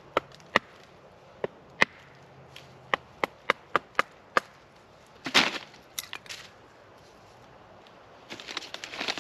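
Fatwood being split with a knife, heard as a series of sharp wooden knocks that quicken over the first few seconds. About five seconds in comes a louder splintering crack, followed by a few lighter knocks and some scraping near the end.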